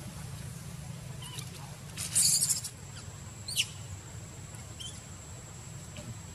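A few short, high-pitched animal squeaks. About two seconds in comes a louder, shrill, noisy burst, and a second later a squeal that falls in pitch, all over a steady low hum.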